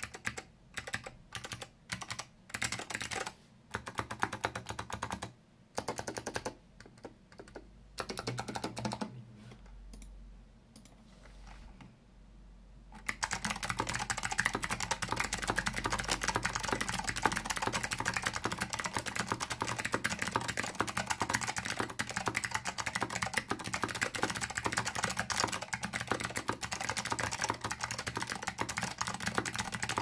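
Alps64 mechanical keyboard with click-modded Salmon Alps switches (White Alps click leaves) in a walnut case being typed on, with crisp clicky keystrokes. It starts with separate keystrokes and short runs, pauses for a few seconds, then from about 13 seconds in runs into fast continuous typing.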